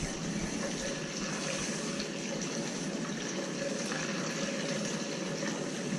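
Gasoline pouring steadily from a gas can through a funnel into a snow blower's nearly empty fuel tank.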